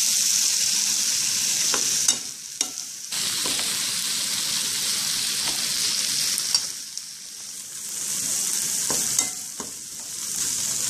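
Small prawns sizzling in curry sauce in a pot as they cook down, stirred with a metal spoon that clicks against the pot a few times. The sizzle is steady, easing off briefly twice.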